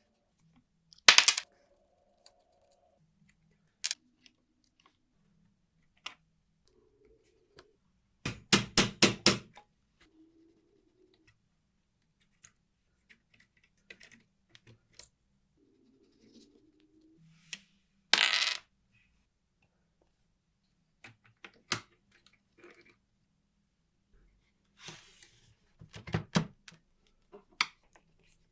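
Scattered metallic clicks and clinks from handling an old mechanical calculator and its small steel parts, with a quick rattling run of ticks about eight seconds in and another short rattle a little past halfway.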